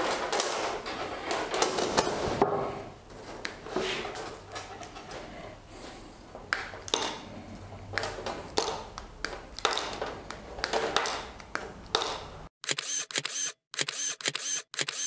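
Copper stitching wire being cut into short lengths with cutters: a string of sharp snips and clicks amid handling noise. About twelve seconds in, the sound changes to short, clipped clicks with silent gaps between them.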